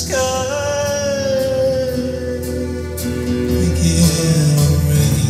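A country-style song with acoustic guitar and singing, played through North American Sound studio monitor loudspeakers. Just after the start a long held note drops sharply in pitch, then fades over about two seconds.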